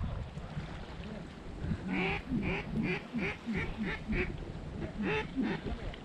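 Duck quacking: a quick, evenly spaced run of about eight quacks, then two more about a second later, over low wind noise.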